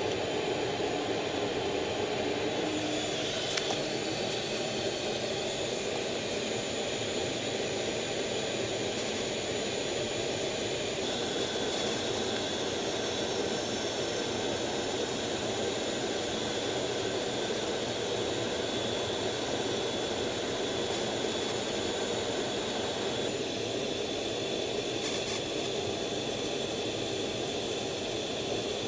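F/A-18F Super Hornet's twin jet engines running steadily, heard from the cockpit as an even rush of noise with a high, steady whine over it.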